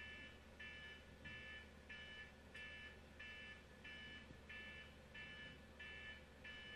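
Near silence with a faint electronic beep repeating evenly, about one and a half beeps a second, over a low steady hum.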